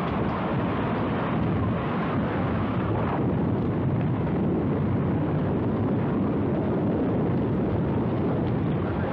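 Steady, loud rush of wind from a violent tornado close by, buffeting the microphone of the camcorder recording it.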